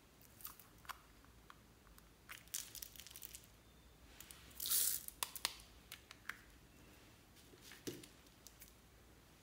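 Small plastic toy capsule being handled and pulled open: scattered light plastic clicks and taps, with a short, louder rasp a little before halfway through.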